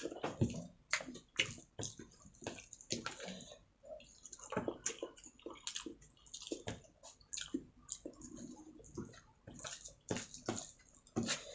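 Close-up wet eating sounds: chewing and lip-smacking on mouthfuls of rice with chili chicken gravy, a quick run of irregular moist clicks and squishes.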